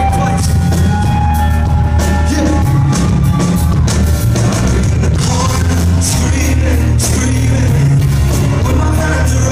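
A live rock band playing loudly with heavy bass while a male singer sings into a microphone, heard from within a concert crowd.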